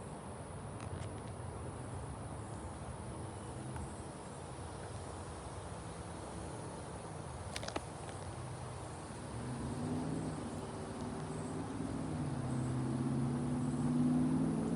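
Wind blowing across the microphone outdoors, a steady rushing noise. A single sharp click comes about halfway. In the second half a low hum rises and grows louder toward the end.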